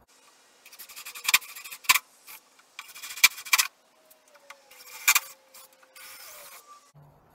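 Cordless drill with a 5/16-inch bit boring bolt holes through a fiberglass boat transom, run in four short bursts of grinding, clicking chatter with brief pauses between.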